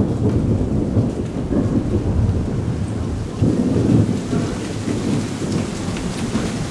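Thunder rumbling through steady rain, the rumble swelling again about halfway through.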